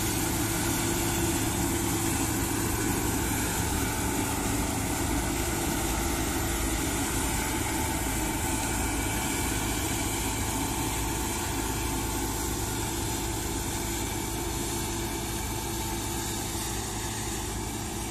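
Claas Lexion 660 combine harvester running steadily while harvesting: its engine and threshing machinery make a continuous hum, slightly quieter near the end as it moves away.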